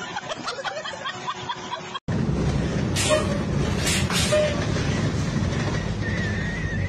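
Voices and laughter, then after about two seconds a sudden cut to the loud rumble and rattle inside a moving passenger vehicle, with a couple of sharp knocks.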